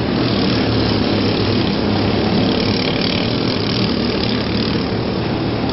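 Engines of several demolition derby vehicles running at once, a steady loud mechanical noise with no single sudden crash standing out.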